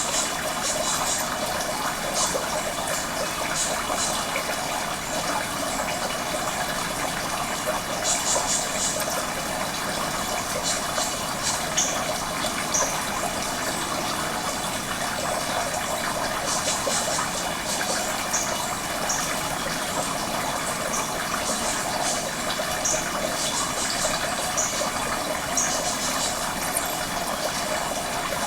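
Steady rush of running water, with short high chirps scattered through it in small clusters.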